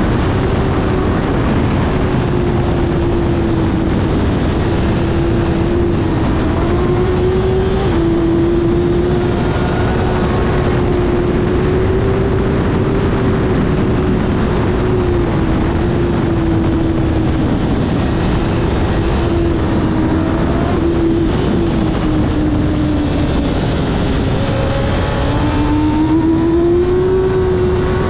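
Kawasaki ZXR750 inline-four race bike engine running hard at high revs at racing speed. Its pitch holds high and wavers with the throttle, dips briefly a few times, then climbs again near the end. Heavy wind rush on the microphone runs underneath.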